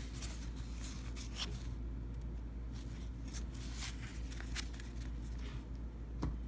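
Faint clicks and rustles of 1990 Fleer basketball trading cards being flipped through by hand, over a steady low hum.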